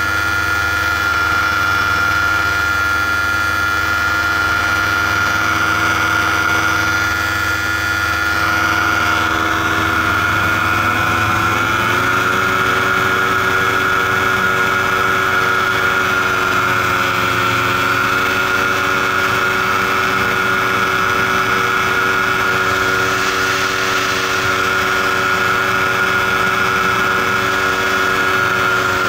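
Paramotor engine and propeller running steadily in flight, the engine note rising a little about ten to twelve seconds in, then holding at the higher pitch.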